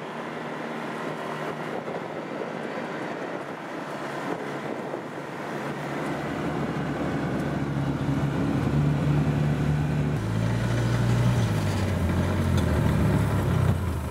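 Side-by-side utility vehicle's engine running as it drives, with driving noise. The engine gets louder over the second half, and its pitch drops about ten seconds in.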